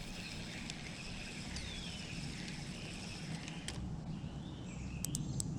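Quiet riverside outdoor ambience: a low steady rumble with faint chirping bird calls, one of them a falling whistle about one and a half seconds in. A few sharp clicks come near the end.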